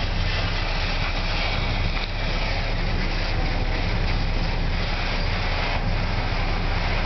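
Freight train boxcars rolling past: the steady running noise of steel wheels on the rails.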